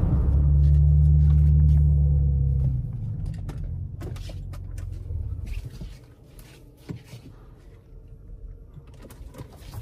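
BMW X5 xDrive45e's turbocharged inline-six running at a steady engine speed with a deep drone, then dropping away about three seconds in as the throttle comes off, leaving quieter road noise with scattered light clicks.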